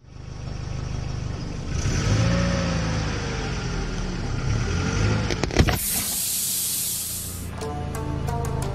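A car engine running with a low rumble, then a sharp bang about five and a half seconds in, followed by a loud hiss of air rushing out of a punctured car tyre for about a second and a half. Plucked music starts near the end.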